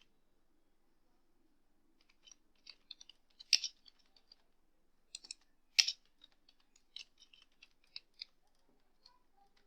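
Computer keyboard typing: irregular keystrokes starting about two seconds in and running for about six seconds, with two louder key presses among them.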